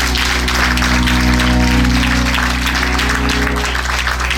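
Congregation clapping and praising over sustained chords on a church keyboard, with a strong held bass, in response to a call to give God a praise.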